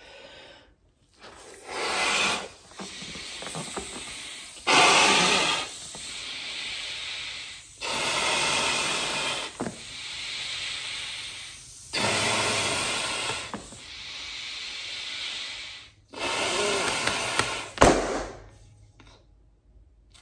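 A man blowing air by mouth into a blue disposable glove, inflating it like a balloon with about five long hard puffs and quieter hissing between them. Near the end a single sharp pop, the loudest sound, as the glove gives way at the thumb, then it goes quiet.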